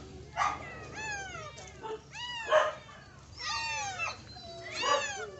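Cats meowing: about five high calls that each fall in pitch, some overlapping one another.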